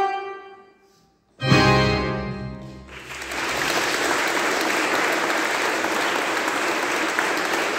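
An accordion phrase fades away. About a second and a half in, the accordion, pipe organ and bass guitar strike a sudden loud final chord with a heavy low end, which rings out. From about three seconds on, an audience applauds steadily.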